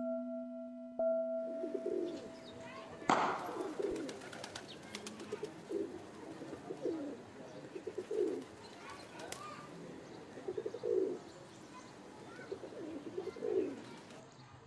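A steady ringing tone dies away and cuts off with a knock about three seconds in. After that a pigeon coos over and over, about once a second, over faint outdoor background.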